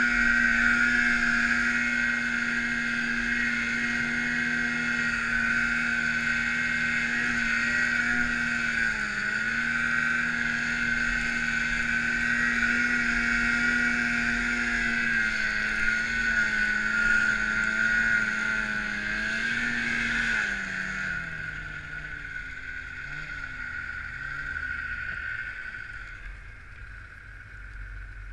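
Snowmobile engine running at steady high revs while ploughing through deep powder, with a high whine over it and a few brief dips in pitch. About twenty seconds in, the revs drop off and the sound fades as the sled slows.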